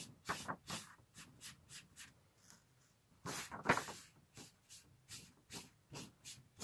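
Paintbrush bristles sweeping back and forth over paper and card in quick strokes, about three a second, brushing off loose mica powder. There is a short pause, then a louder, longer sweep about halfway through.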